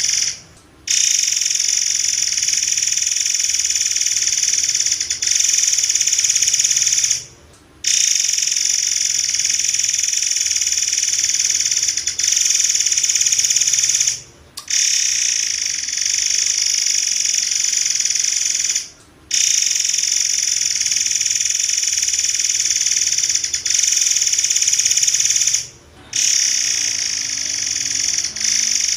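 Murai air (forktail) song: long, unbroken, shrill high-pitched trilling in stretches of five to seven seconds, split by brief pauses, about five stretches in all.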